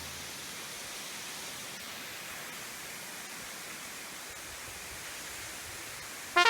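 Steady rushing noise of a waterfall, an even hiss.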